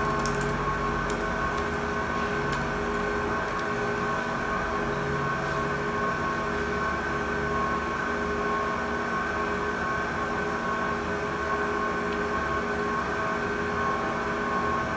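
Steady mechanical hum holding several constant tones, unchanging throughout.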